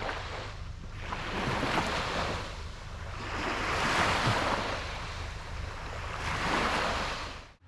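Waves washing in, the rush of water swelling and fading about every two to three seconds, then cutting off abruptly near the end.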